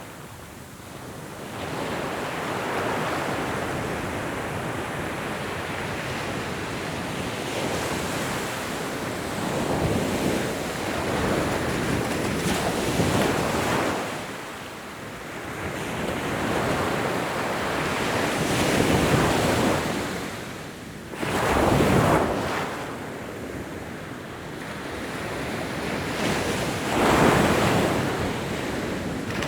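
Ocean waves breaking and washing on a shore, in repeated swells that rise and fall every few seconds, with wind on the microphone.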